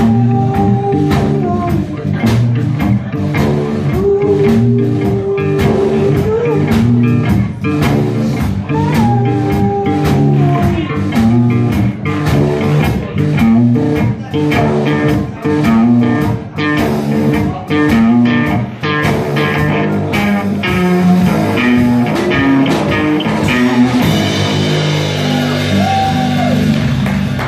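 Live rock band playing an instrumental passage: electric guitar with bent, wavering notes over electric bass and a steady drumbeat. Near the end the beat drops out and a cymbal wash rings over the held chords.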